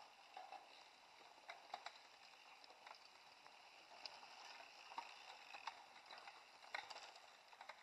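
Faint clicks and rattles from mountain bikes riding past on a dirt forest track, scattered irregularly over a steady low hiss.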